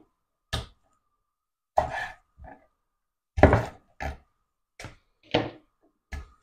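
Kitchen utensils knocking and clattering on a counter: about eight short, irregularly spaced knocks and clicks.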